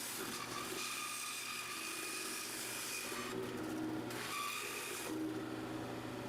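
A small motor running faintly and steadily, with a constant hum and a thin whine.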